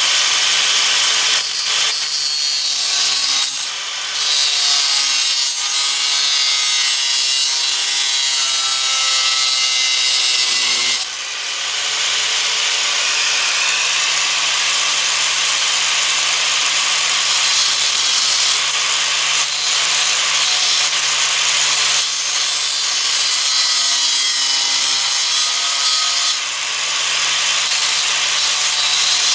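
Small hand grinder running, its disc grinding down the stripped head of a bolt held in a vise. The motor's pitch sags and recovers as the disc bites, with brief letups about 4, 11 and 26 seconds in.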